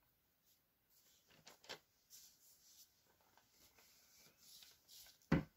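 Faint rustling and handling of a small craft pot on a table, with one short sharp knock a little after five seconds in.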